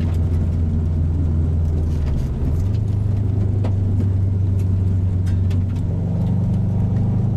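Subaru STI's flat-four engine heard from inside the cabin while driving, a steady low drone. Its pitch dips briefly about two seconds in, then settles higher and climbs a little more near the end. A few sharp ticks cut across it.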